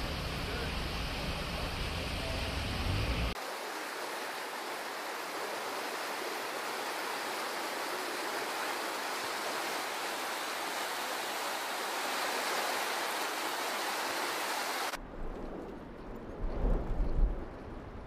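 Rushing floodwater: a steady, even hiss of fast-flowing muddy water. The sound changes at cuts between clips about three seconds in and again near the end, where low rumbling comes in.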